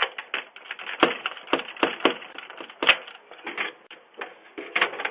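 A run of irregular sharp clicks, cracks and knocks, a dozen or more, heard through a narrow-band doorbell-camera microphone.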